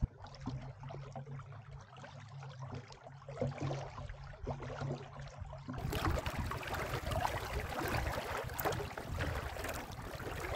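Water trickling and gurgling along a small trimaran's hull as it sails slowly in light wind. About halfway through, a cut brings in louder wind on the microphone and small waves on open lake water.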